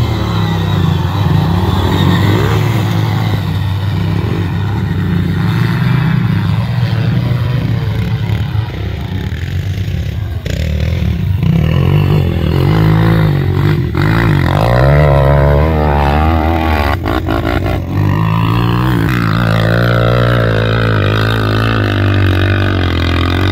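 Quad bike (ATV) engines, single-cylinder, revving and running hard, their pitch rising and falling again and again as the quads ride.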